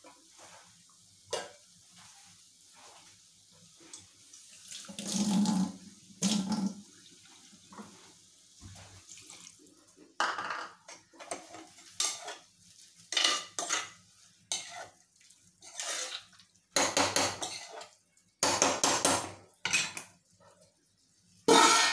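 Steel ladle scraping and knocking in an aluminium pressure cooker as a vegetable sabzi is stirred, with irregular clinks of steel spoons and bowls on the stovetop. Near the end a steel lid is set down on the pot with a loud ringing clang.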